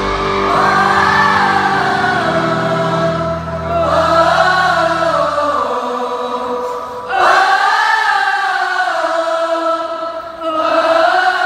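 A concert audience cheering and screaming in long, high-pitched waves. The band's last chord dies away about halfway through.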